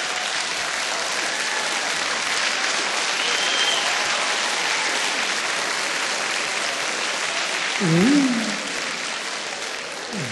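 Audience applauding steadily, thinning out and fading over the last couple of seconds.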